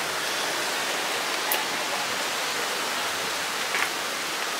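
Steady rushing noise of wind and sea, with two short clicks, one about a second and a half in and one near the end.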